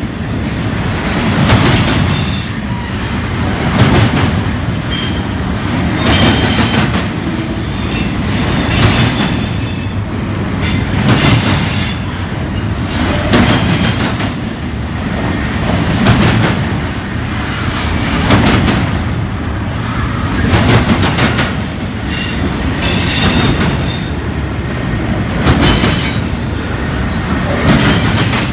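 Union Pacific double-stack container train's well cars rolling past at close range: a steady wheel-and-rail rumble that swells about every two and a half seconds, with high-pitched wheel squeals here and there.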